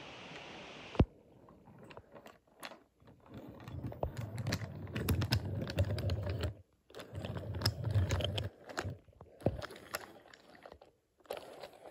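Toy trains rolling along wooden track, wheels clattering and clicking over the track joints with a low rumble, in two runs through the middle, after a single sharp click about a second in.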